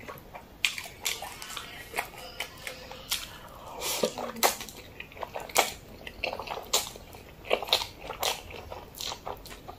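Close-miked eating sounds of a person slurping and chewing black bean sauce noodles: wet smacks and clicks at irregular intervals.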